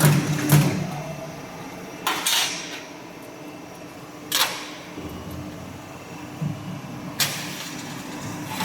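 Hydraulic elbow-forming machine for round duct running with a steady hum, broken about four times by short, sharp bursts of noise as it works.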